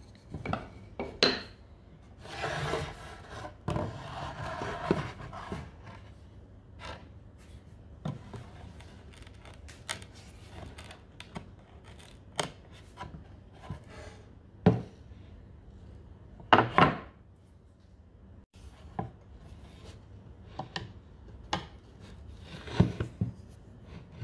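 Old wooden toolbox panels handled and shifted on a wooden workbench: scattered knocks and clatters of wood on wood, with short scraping rubs about two to five seconds in. The loudest is a pair of knocks a little past the middle.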